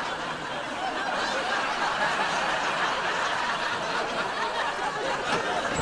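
Studio audience laughing steadily in a continuous wash of laughter, in response to a comic reveal on stage.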